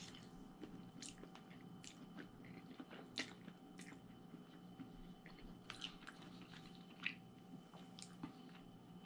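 Faint mouth sounds of a person eating spaghetti: bites and chewing with scattered small wet clicks, over a low steady room hum.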